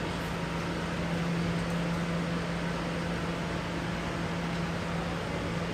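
Steady interior noise of a New York City subway car, an even rushing hiss with a constant low hum from the car's running equipment and ventilation.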